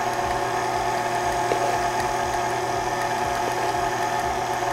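Electric mixer motor running steadily as it beats a cake batter.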